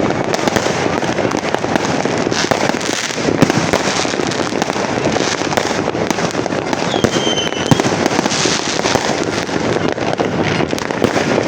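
Fireworks going off continuously: a dense, unbroken crackle of many small bangs and pops, with a brief high whistle about seven seconds in.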